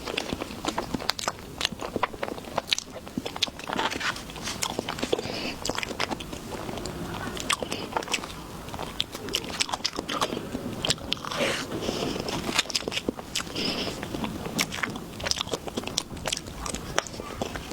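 Close-miked biting and chewing of jasmine pineapple: repeated crisp crunches and clicks, irregular, with no pause.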